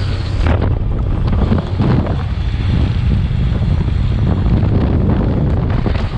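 Heavy wind buffeting the microphone of a moving motorcycle, over a steady low rumble of engine and road.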